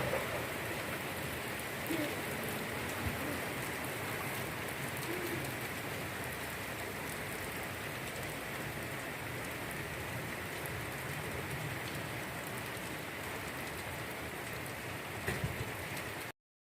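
Light rain falling steadily, with a few faint knocks near the end; the sound cuts off suddenly just before the end.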